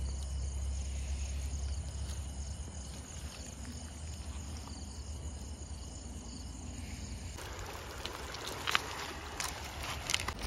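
Flowing river water with a steady low rumble, and insects chirping faintly and repeatedly. From about seven seconds in come splashes and clicks as the net and stones are handled in shallow water.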